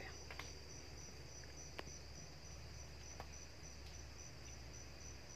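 Crickets chirping faintly in a steady, evenly pulsed rhythm, with a few faint clicks.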